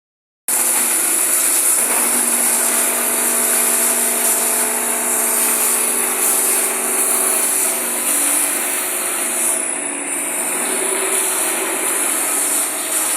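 Three-station wood sanding machine running: a steady mechanical whir with a hiss, starting about half a second in after a brief silence.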